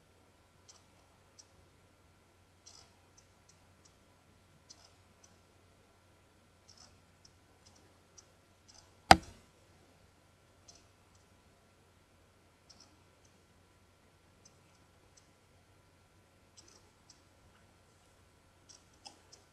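Faint, scattered little clicks and smacks of lips pressing together on fresh lip gloss, often in pairs. One sharp, loud click stands out about nine seconds in.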